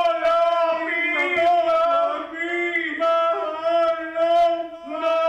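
Music: a male voice singing long held notes in a slow, chant-like line, each note lasting a second or two with short breaks between.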